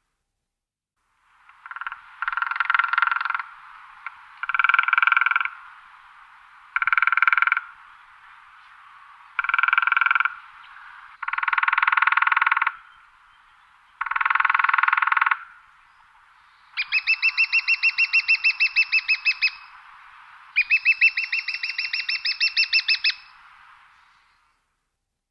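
Woodpecker drumming on resonant wood: a series of about eight fast drum rolls, one every two seconds or so, each ringing out with an echo. Most rolls last about a second, and the last two are longer, about two and a half to three seconds each.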